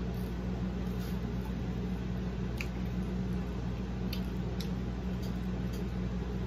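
Soft chewing and wet squishing of a burger being eaten, with a few faint clicks, over a steady low hum.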